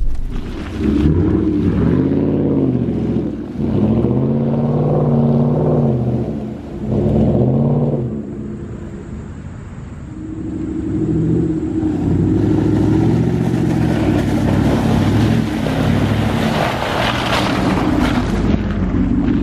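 Ford F-150 pickup engine revving up and down over and over as the truck drives through mud, easing off around nine seconds in and then revving again. Near the end the truck passes close, its tyres churning and throwing mud.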